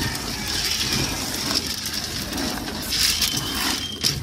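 A hand stirring damp, drained feed grains and pellets in a stainless steel pot, the grain rustling steadily as it is mixed.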